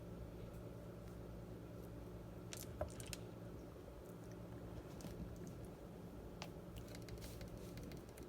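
Faint, scattered clicks and taps of small plastic glitter pots being opened and handled, over a low steady hum.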